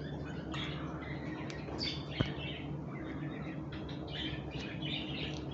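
Small birds chirping in short repeated bursts over a steady low hum, with one light click about two seconds in.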